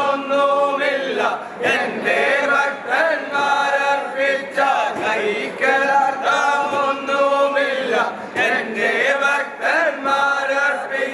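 A group of men singing a devotional chant together in long held phrases with short pauses between them. It is the sung prayer with which the palliyodam (snake boat) oarsmen bless those who offered the feast.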